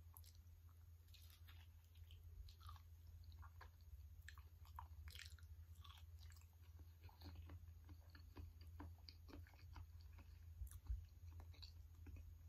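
Faint mouth sounds of a person biting and chewing soft durian flesh: small wet smacks and clicks scattered irregularly, one sharper click near the end, over a low steady hum.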